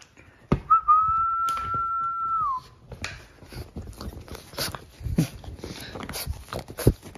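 French bulldog puppies scuffling in play on a fabric couch, with scratching, short clicks and a few soft thumps. Near the start a single high, steady whistle-like tone holds for about two seconds, then dips and stops.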